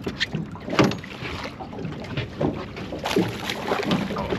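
Hooked smallmouth bass splashing at the surface beside the boat as it is netted: several short splashes over wind noise on the microphone.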